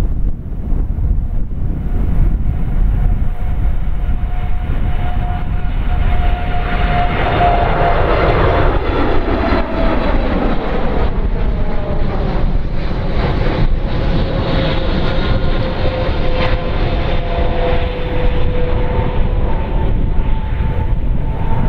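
Boeing 787-8 Dreamliner's twin turbofan engines at takeoff thrust as the jet lifts off and climbs past: steady, loud engine noise over a deep rumble, with a whining tone that slides slowly down in pitch and a sweeping whoosh as it passes overhead about halfway through.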